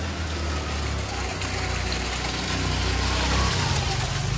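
Heavy rain hissing steadily on a flooded street, with a motor vehicle's engine running low and steady underneath; the hiss swells a little in the middle.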